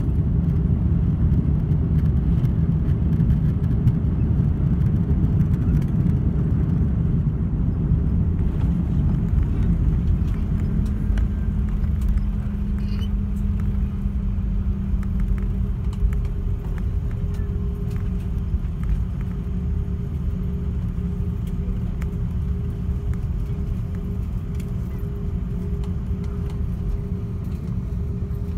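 Cabin noise of an Airbus A330-300 rolling along a wet runway after touchdown: a heavy, steady rumble of engines and wheels that slowly eases as the aircraft slows. A steady engine hum comes in about ten seconds in, and a higher hum joins about halfway through.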